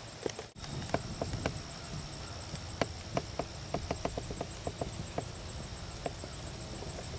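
Hoofbeats of a horse cantering on arena sand: a run of light, quick knocks about four a second. Crickets trill steadily and high in the background.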